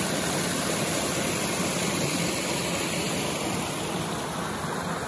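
River water rushing steadily over rocks, a constant even hiss of flowing water.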